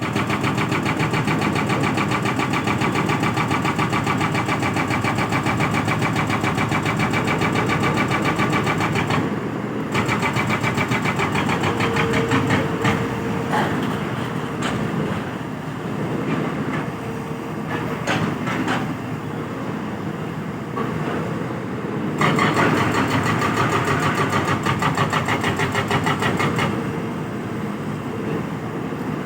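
Excavator diesel engine running with a rapid, even pulse. The sound shifts about nine seconds in and again a little past twenty seconds, and there are scattered sharp knocks in the middle stretch.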